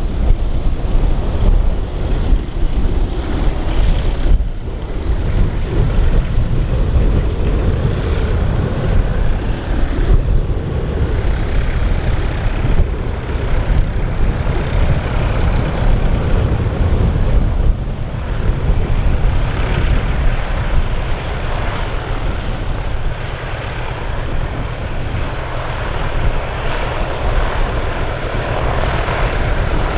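Piper PA-31 Chieftain's twin piston engines and propellers running at low power as the aircraft taxis after landing, drawing nearer in the second half, with wind rumbling on the microphone.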